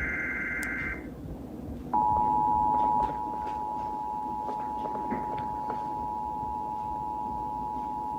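Emergency Alert System signalling on a weather-radio broadcast: the last warbling burst of the digital SAME header ends about a second in. About two seconds in, the two-tone EAS attention signal starts, a steady dual-tone alarm that is louder for its first second and then holds steady, announcing a test of the warning alarm system.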